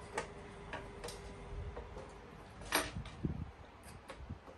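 Hand screwdriver turning screws into a metal equipment chassis: scattered small metallic clicks and ticks, the sharpest about three seconds in.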